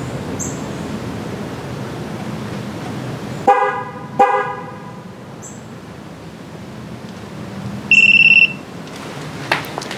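Chevy Suburban's horn chirping twice in quick succession about three and a half seconds in, the truck's signal that it has received a tire pressure sensor during the TPMS relearn. Near the end, the Launch TPMS tool gives one short, high-pitched beep lasting about half a second.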